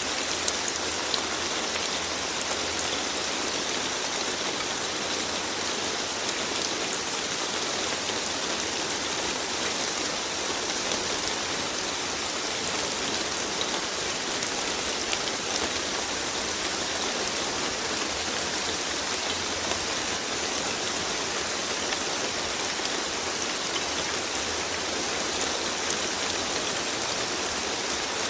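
Steady rain falling, with a dense even hiss and many small drop taps.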